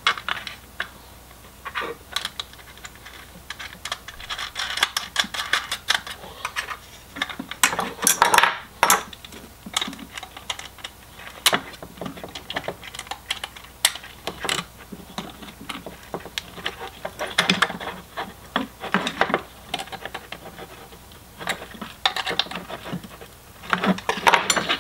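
Hand work on a plastic fog-light housing and its bracket: irregular small clicks, taps and rattles as the bracket is fitted over a carriage bolt and the nut is turned with needle-nose pliers.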